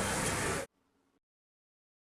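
Steady background hiss with a faint low hum, cutting off abruptly under a second in, then complete silence as the recording ends.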